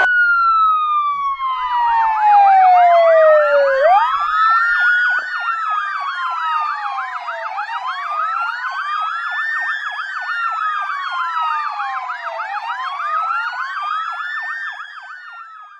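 A siren sound effect wailing in slow rises and falls, with a faster warbling siren layered over it from about a second and a half in. It fades out near the end.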